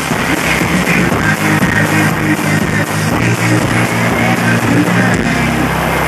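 Live electronic rock band playing a song at full volume, with guitar and a driving beat; a heavy bass comes in about five seconds in.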